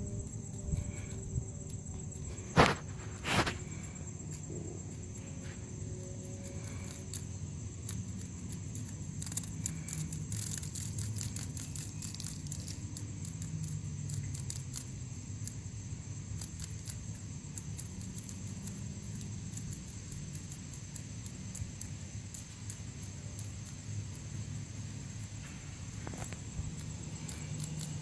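Steady, high-pitched trilling of an insect chorus, with a low steady hum underneath. Two sharp clicks come about two and a half and three and a half seconds in.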